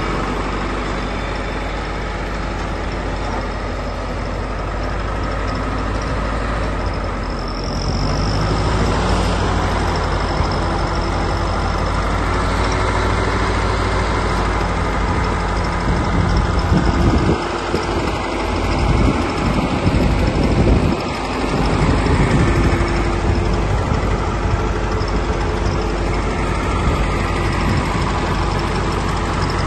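Nuffield Universal tractor's four-cylinder petrol/TVO engine running steadily. It gets a little louder about a quarter of the way in and surges unevenly for a few seconds past the middle.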